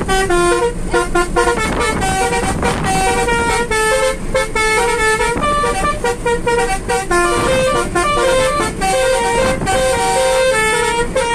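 Basuri musical air horns on a car playing a quick melody note by note, triggered from a pianika keyboard, over the low hum of the moving car.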